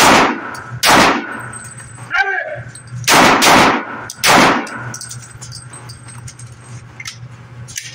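Smith & Wesson M&P 2.0 .40 S&W pistol with a 3.6-inch barrel fired in Mozambique drills: a quick pair right at the start and a third shot about a second later, then another pair about three seconds in and a third shot about a second after that, each shot echoing in a concrete indoor range.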